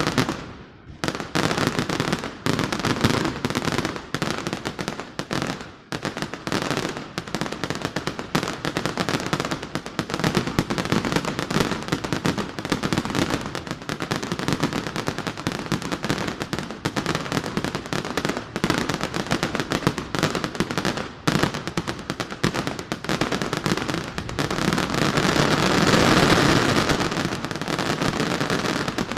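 Fireworks display: a rapid, continuous barrage of bangs and crackles, growing denser and louder near the end.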